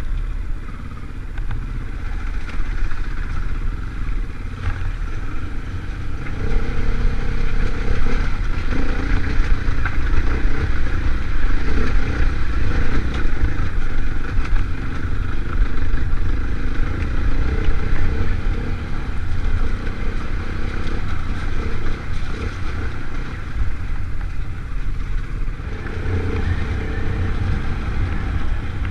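Off-road motorcycle engine running under changing throttle while riding a rough, rutted track, over a steady low rumble. It gets louder about six seconds in and eases off again after about eighteen seconds.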